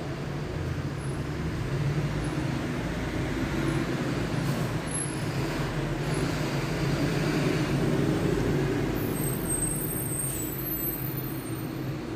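Road traffic noise: a steady rumble of heavy vehicles that swells toward the middle and eases off, with a few faint high squeaks near the end.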